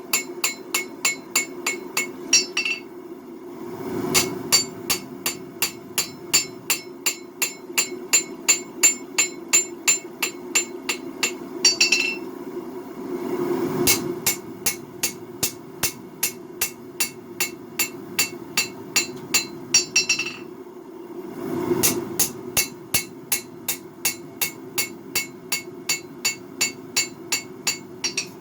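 Hand hammer forging a hot Damascus steel blade on an anvil, about three blows a second, each blow with a bright metallic ring, in runs of several seconds broken by three short pauses. A steady low roar of a three-burner propane forge runs underneath.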